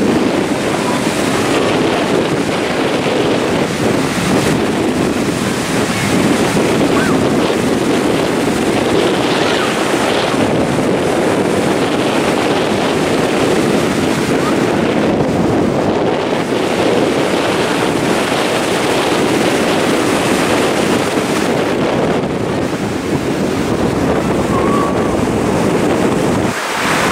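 Ocean surf breaking and washing up the beach, a steady rushing, with wind buffeting the microphone.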